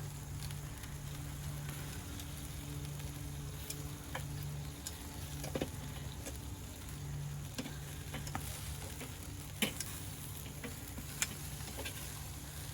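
Chicken wings sizzling on a charcoal grill: a steady frying hiss broken by scattered crackles and a few sharper pops.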